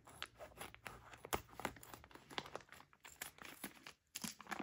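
Scissors cutting a clear plastic bag, the thin plastic crinkling as it is handled: faint, irregular crackles and snips.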